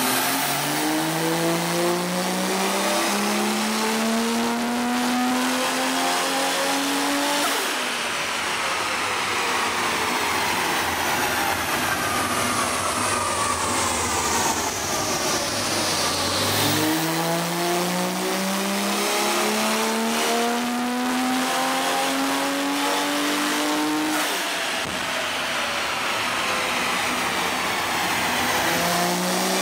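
The turbocharged 4.0-litre straight-six of an FPV F6 ute is run at full throttle on a chassis dyno. It climbs steadily through the revs for about seven seconds, then lifts off and winds down. A second pull comes about halfway through, and a third starts just before the end.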